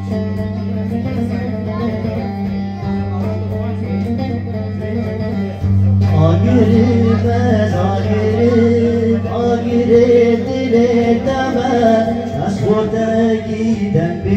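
An electric bağlama (saz) is played through a small amplifier: a plucked melody over a steady low hum. About six seconds in, a male voice joins through a microphone, singing a wavering, ornamented folk melody, and the music gets louder.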